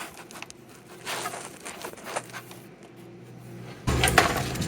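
Handling noise from a camera being picked up and set in place: scattered rustles, scrapes and light clicks, then a louder low rumble of handling about four seconds in.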